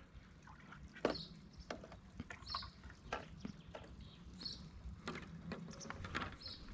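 Faint outdoor ambience: scattered light clicks and taps, with a few short high chirps.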